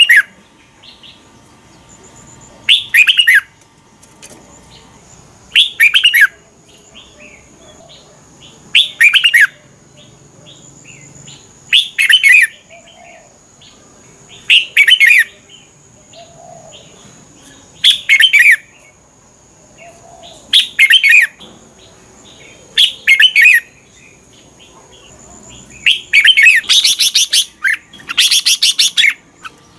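Red-whiskered bulbul singing: short, loud whistled phrases repeated about every three seconds, with a longer, denser run of song near the end.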